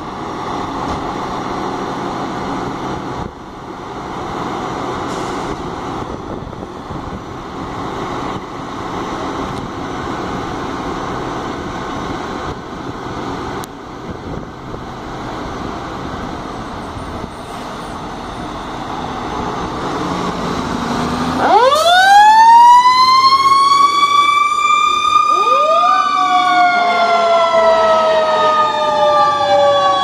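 Fire apparatus diesel engines running steadily. About two-thirds of the way in, a fire truck siren winds up into a loud wail. A second, lower siren tone rises about four seconds later, and both slowly fall in pitch.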